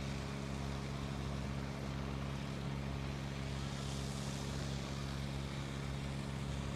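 An engine running steadily close by, a constant low drone with no change in speed, with a brief swell of hiss about four seconds in.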